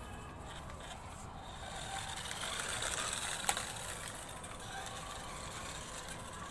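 Small toy radio-controlled car running: the whir of its electric motor and plastic gears with tyre noise, swelling about two seconds in, and a sharp click about three and a half seconds in.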